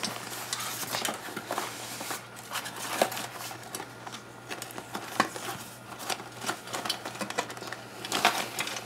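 Hands shifting two metal elevator hall station faceplates and their bundle of wires in a cardboard box: irregular rustling with sharp clicks and knocks, the loudest about 3 and 5 seconds in, and a burst of rustling near the end.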